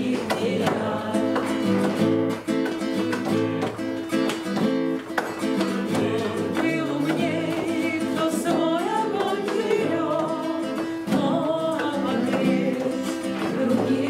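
Strummed acoustic guitar accompanying people singing a song together.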